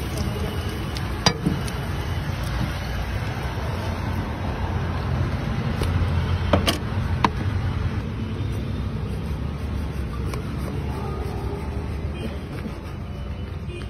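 Steady low rumble of street-stall background noise, with a few sharp metal clicks of a spatula against the griddle and plate about a second in and twice near the middle.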